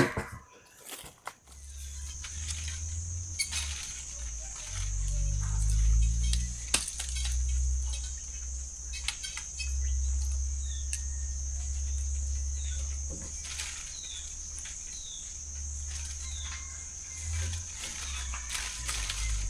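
Wind buffeting the microphone in an uneven low rumble, over a steady high-pitched insect drone, with a few short chirps and light clicks.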